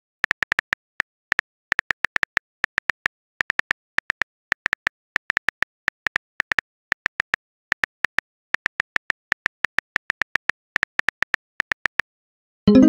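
Smartphone keyboard typing clicks, short sharp taps at an uneven pace of a few per second, as a text message is typed out. Near the end a short pitched message-sent sound begins.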